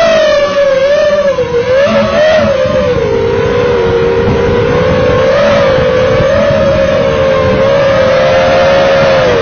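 FPV quadcopter's brushless motors whining, the pitch wavering up and down with throttle.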